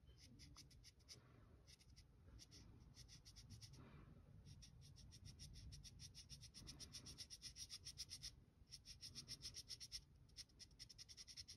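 Thick black permanent marker's felt tip scratching quickly over a 20 mm wooden bead as it is coloured in, faint strokes several a second with a couple of short pauses.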